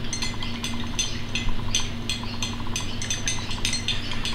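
A metal spoon stirring a drink in a small glass mug, clinking against the glass again and again in quick, uneven strokes.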